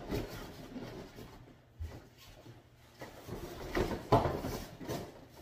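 Cardboard packing boxes being shifted and pulled out of a large shipping carton: cardboard scraping and rustling with a few knocks, quiet in the middle and loudest in the second half.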